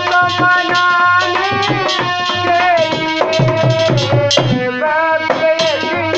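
Instrumental interlude of a Hindi Shiva bhajan: a sustained melody instrument plays over a steady hand-drum rhythm.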